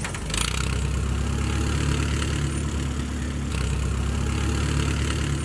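Cessna 150 floatplane's four-cylinder Continental O-200 engine running steadily at low power, with a hiss over the low drone.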